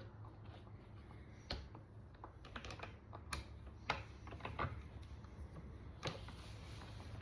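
Irregular light clicks and taps of metal hardware and tools being handled during bar stool assembly, over a low steady hum.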